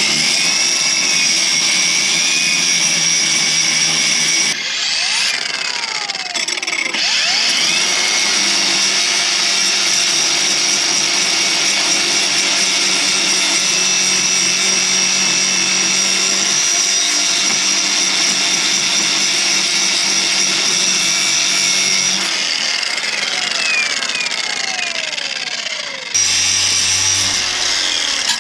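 A cordless angle grinder is running continuously, its disc grinding through a seized steel track rod end nut. The steady whine sags and recovers a few seconds in and again near the end.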